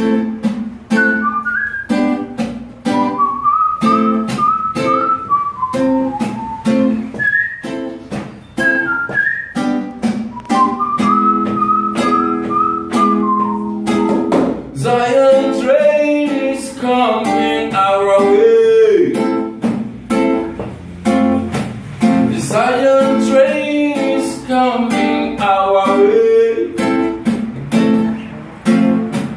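Classical nylon-string guitar strummed in a steady rhythm, with a whistled melody over it for the first half and a man's voice singing from about halfway through.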